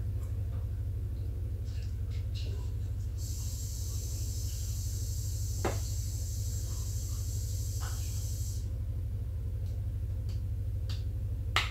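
Steady low hum of a quiet room. A stretch of high hiss comes in about three seconds in and lasts some five seconds, and a few light knocks sound, one near the middle and one near the end.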